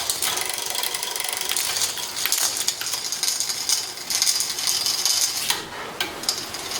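Cervélo carbon road bike's drivetrain being worked by hand: a dense run of fast metallic clicking and rattling, like a freewheel's pawls ticking, that dips briefly near the end.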